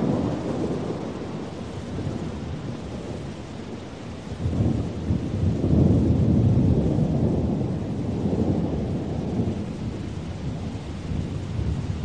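Thunderstorm: rolling thunder over steady rain. A rumble dies away in the first few seconds, then a fresh, deep rumble of thunder breaks about four seconds in, swells, and slowly fades.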